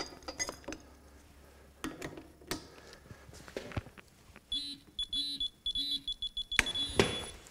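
Electronic digital torque wrench beeping as it is pulled on a vise-held bolt to measure breakaway torque: three short high beeps about half a second apart, then a longer held beep. Scattered handling clicks come before, and two sharp knocks near the end.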